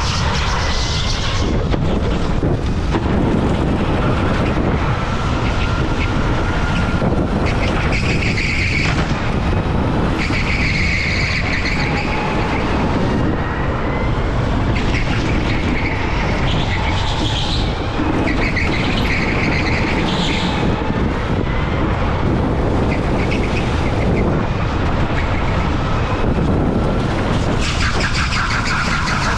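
Rental go-kart heard onboard, with a steady rumble and wind noise on the camera microphone. A faint motor whine rises and falls with speed, and the tyres squeal briefly again and again through the corners.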